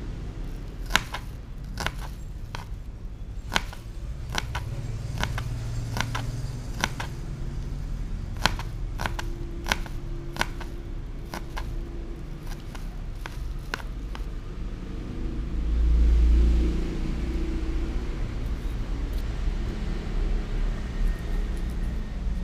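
A small knife clicking sharply and irregularly against a plastic cutting board as small red onions are cut. A steady low rumble runs underneath and swells louder for a moment about two-thirds of the way through, after the clicks stop.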